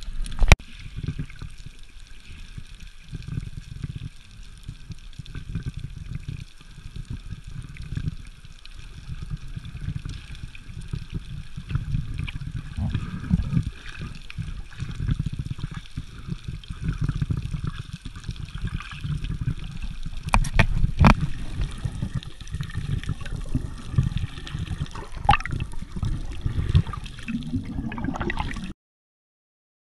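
Underwater sound picked up by a camera in its waterproof housing while snorkeling: low, uneven water noise with gurgling, and a few sharp clicks. It cuts off suddenly near the end.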